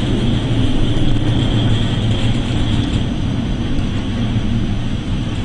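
Steady low rumble with a rushing hiss over it, the sound aboard a ship at sea in heavy swell.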